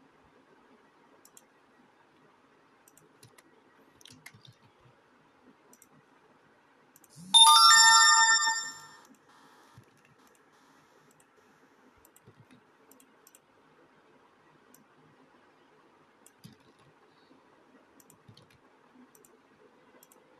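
Smartphone notification chime for an incoming WhatsApp message: one bright, bell-like tone that sounds about seven seconds in and fades out after about a second and a half. Faint background hiss and light ticks before and after it.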